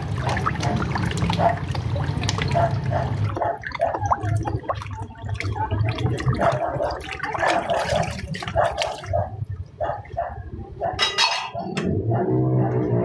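Water running and splashing during hand dishwashing, with small clicks and knocks throughout. A pitched tone comes in near the end.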